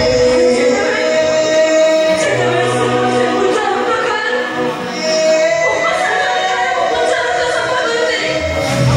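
A woman singing a slow Odia jatra song over instrumental backing. She holds long, wavering notes, pausing briefly midway before the next line.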